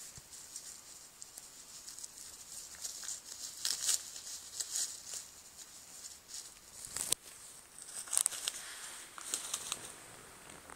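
A puppy chewing and tugging at a crinkly wrapper: irregular crackling and crinkling, with a sharp crackle about seven seconds in.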